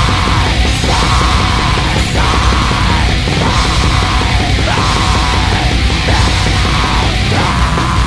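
Experimental black metal playing loud: a dense, distorted full-band sound with a phrase that repeats about every three-quarters of a second.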